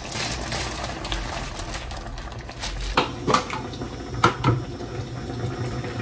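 Kitchen sounds: a steady watery hiss, then several sharp knocks and clinks of dishware about halfway through.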